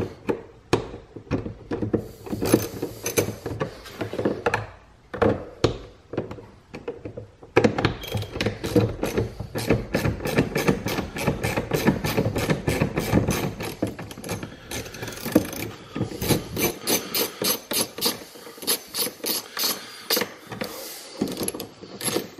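Screwdriver turning a T20 Torx screw out of the plastic door-pull trim in a car door. It makes a long run of quick clicks and scrapes, sparse at first and then coming thick and fast from about seven seconds in.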